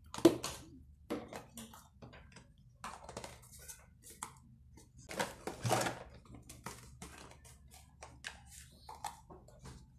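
Plastic food containers and lids clicking and knocking together as they are handled and pulled apart. There is a sharp knock just after the start and a longer clatter about halfway through.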